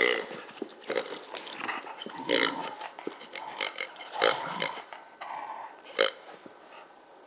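Pink rubber honking pig toy giving short pig-like honks several times as a wire fox terrier bites and squeezes it in its jaws during a tug, with quieter chewing and rubbing of rubber between honks.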